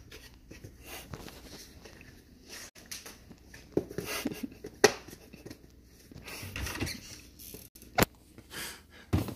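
Scattered light knocks and rustling from kitchen items being handled, with one sharp click about eight seconds in.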